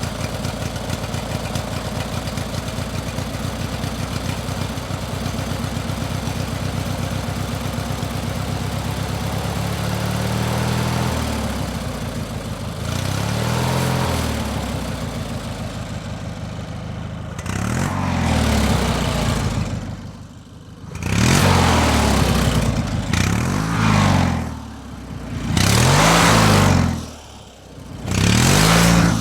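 An engine idling steadily, then revved about half a dozen times from around ten seconds in, each rev rising and falling in pitch. The later revs are louder and come every two to three seconds.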